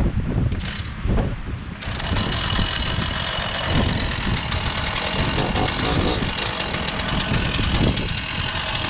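Gasoline chainsaw engine starting to run steadily about two seconds in and continuing, with wind rumbling on the microphone.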